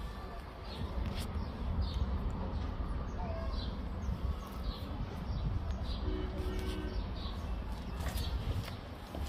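Small birds chirping, short high falling chirps repeating every second or so over a steady low rumble.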